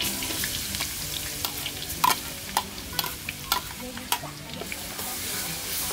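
Food sizzling as it fries in hot oil, with a stirring utensil knocking and scraping against the pan in repeated sharp strikes, most of them between about two and four seconds in.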